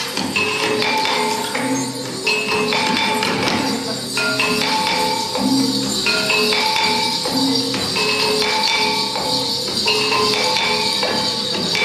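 Instrumental dance music: a repeating melody of short, held notes over a constant high jingling percussion.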